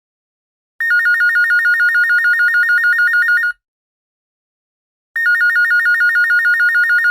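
Electronic office telephone ringing with a rapid two-tone warble: two rings of about three seconds each, separated by a short silence.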